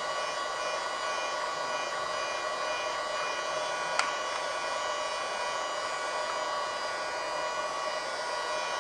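Mini USB desktop vacuum cleaner running steadily with a high motor whine and airflow hiss as it sucks dust out of keyboard crevices; a single sharp click about four seconds in.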